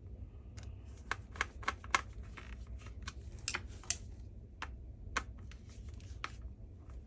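Irregular small clicks and taps as the parts of a cordless vacuum's roller head are handled and pressed into place during reassembly, the sharpest about two seconds in.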